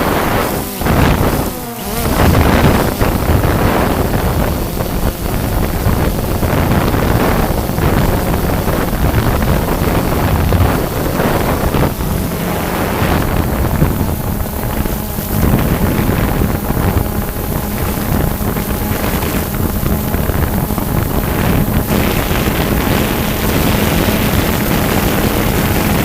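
DJI Phantom 2 quadcopter's propellers buzzing steadily, with wind rushing over the microphone. The sound dips briefly twice near the start.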